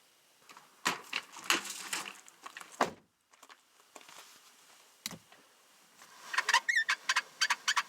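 Plastic clicks and rattles from handling a Chevy pickup's seatbelt trim and mechanism: a clatter of clicks, a single knock, then a fast, even run of clicks, about six a second, with a brief squeak among them.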